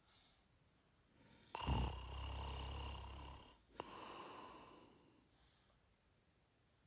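A person snoring gently: one snore with a low buzz, starting about a second and a half in and lasting about two seconds, then a brief click and a softer breath that fades away.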